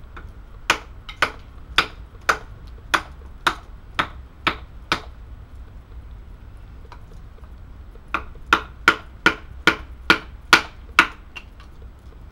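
A wooden baton striking the spine of a Helle Eggen bushcraft knife to drive it through a piece of wood (batoning). Two runs of sharp knocks: about nine at roughly two a second, a pause of about three seconds, then about eight more a little faster.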